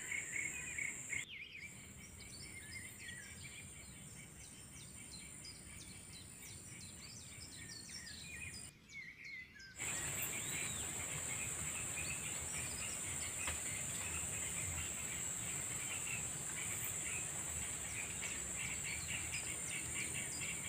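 Tropical forest ambience: a steady high-pitched insect drone with many short bird chirps over it. The sound drops out briefly about a second in and again for about a second around nine seconds in, and is louder and busier after that.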